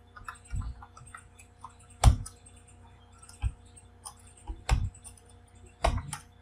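Slow, irregular typing on a computer keyboard: single keystrokes about a second apart, the loudest about two seconds in.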